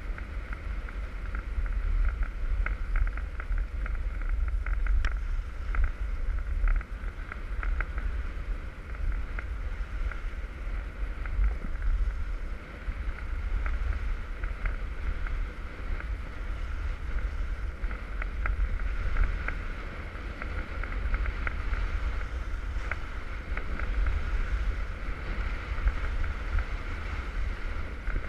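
Wind rumbling on the camera's microphone during a ski run, over the hiss and scrape of skis sliding on hard-packed groomed snow with many small clicks of edge chatter.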